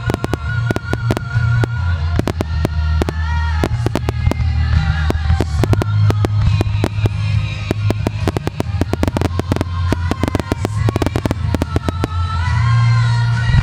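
Fireworks bursting in a rapid barrage, many sharp bangs coming thickest in the middle, over a song with a singing voice and a steady bass line played for the show.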